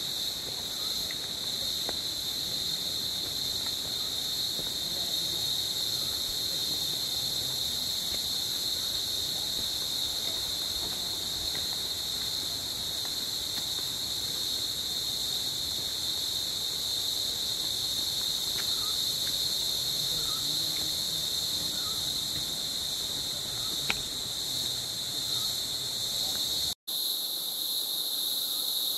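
Steady, high-pitched drone of rainforest insects chorusing, with a few faint short chirps over it. The sound drops out for an instant near the end and comes straight back.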